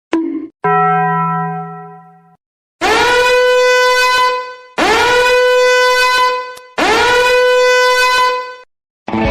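A blown horn sounding three long blasts on one pitch, each about two seconds, with the pitch rising into each note at the start. Before them, a lower tone fades away over about two seconds.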